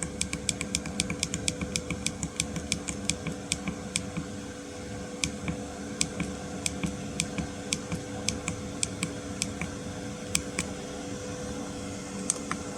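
Chinese 2 kW diesel air heater running: its fuel dosing pump ticks quickly, about five clicks a second, then slows to roughly two a second after about five seconds as the heater is turned down toward its lowest setting. A steady hum from the heater's fan runs underneath.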